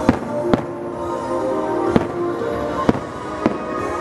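Aerial fireworks bursting: five sharp bangs spread unevenly over about four seconds, with music playing steadily underneath.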